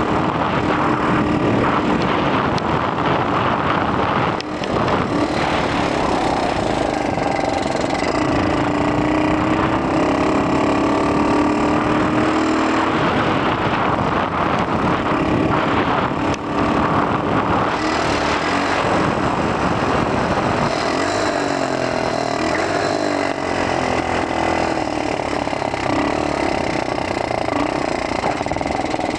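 X18 super pocket bike's small two-stroke engine running under way, its pitch rising and falling as the throttle changes, with wind rushing over the helmet-mounted microphone.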